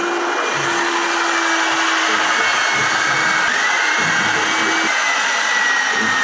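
Electric motor driving a homemade wood lathe, running steadily at speed with a long wooden cylinder spinning. A high whine rides over the machine noise, its pitch rising a little about three and a half seconds in, while a lower hum drops out about a second later.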